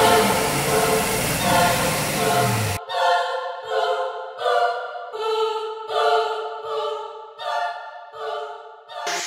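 Choral-style background music with voices singing in short, pulsing phrases. About three seconds in, the low end cuts out abruptly, leaving only the thinner, higher voices.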